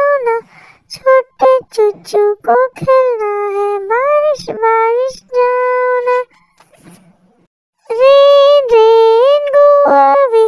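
A high-pitched voice singing a Hindi nursery rhyme in held, melodic phrases, pausing for about a second and a half partway through.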